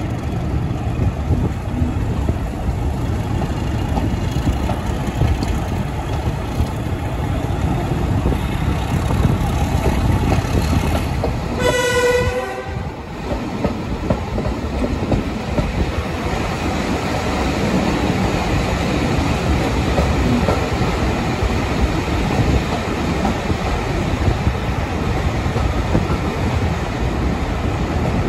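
Train running at speed behind a Class 31 diesel locomotive: steady rumble of the wheels and carriage. About twelve seconds in the locomotive's horn sounds once, briefly.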